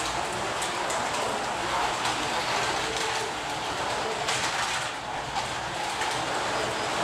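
Several 1:32 Carrera Digital 132 slot cars running laps on the plastic track: a steady mix of small electric motors whining, rising and falling, and tyres and guides rattling over the track.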